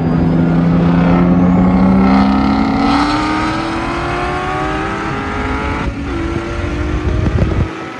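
Race cars at full throttle in a roll race, a C7 Corvette Z06 passing close by, its engine note climbing steadily in pitch as it accelerates.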